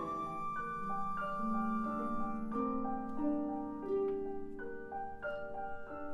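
Live chamber-orchestra film score in a quiet passage: single struck notes, piano-like, follow one another every half second or so, each ringing on over a soft held low note.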